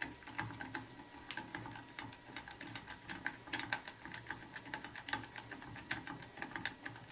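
Hand nut driver with a tri-wing bit turning a tamper-proof set screw into a water-meter register housing: a run of faint, irregular clicks, a few a second. The screw is being set to close the slide crimp and clamp the register onto the register plate.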